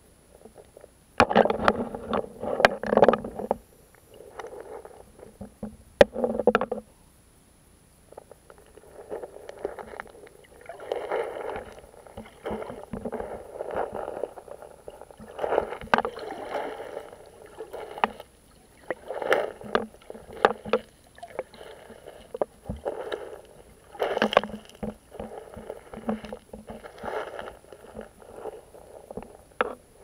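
A person wading in sandals through a shallow pebbly riverbed, heard from just under the water. Stones crunch and clack underfoot and water sloshes, in uneven bursts with sharp clicks, starting about a second in.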